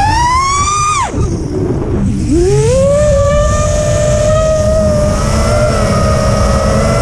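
FPV racing quadcopter's brushless motors whining as they are throttled: the pitch climbs, falls away steeply about a second in, then climbs back and holds a steady hum before rising again near the end. A steady low rush of wind over the on-board camera's microphone runs underneath.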